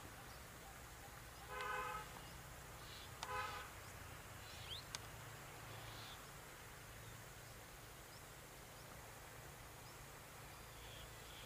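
Quiet outdoor ambience under a steady low hum, with faint high bird chirps. Two short harsh honks, a second and a half apart, are the loudest sounds.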